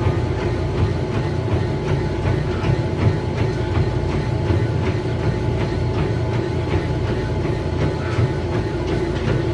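Treadmill running at speed under a runner: a steady low rumble of the belt and motor with the even, repeating beat of footfalls landing on the deck.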